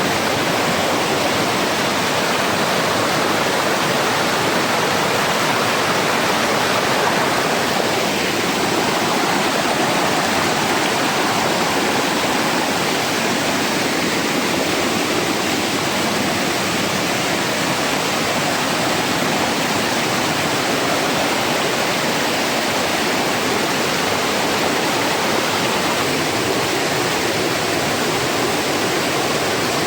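Fast river water rushing over rocks: a loud, steady rush of white water.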